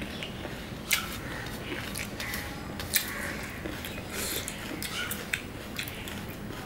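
Close-up chewing of a mouthful of juicy pomelo pulp mashed with chili, with soft wet mouth sounds and a few sharp clicks about a second in, near three seconds and again near five seconds.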